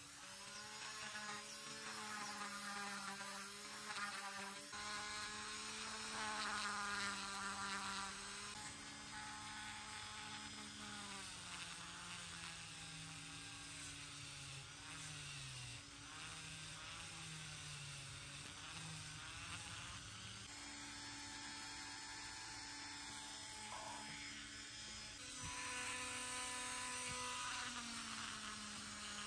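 Small handheld rotary tool running at high speed with a thin, steady whine. Its pitch sags and wavers as a brush wheel, and later a felt polishing bob, is pressed against small rusty metal parts of a coil tattoo machine.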